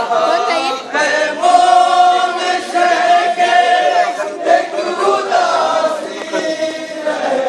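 A crowd of mourners chanting a lament together in unison, with long held notes.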